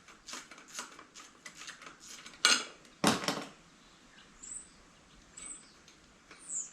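Small metal clinks and taps from tools and bolts as the drink bottle holder is unbolted from a bicycle frame, with two louder knocks about two and a half and three seconds in.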